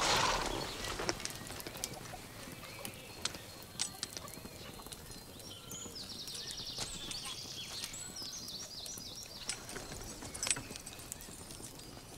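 A horse stepping and shifting on grass, with scattered short hoof knocks over a quiet background.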